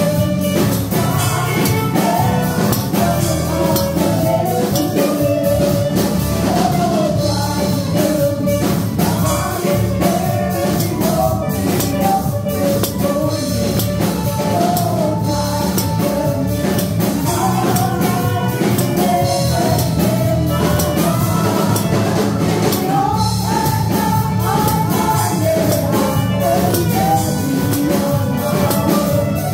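Worship music playing loud: a sung melody over a steady drum beat.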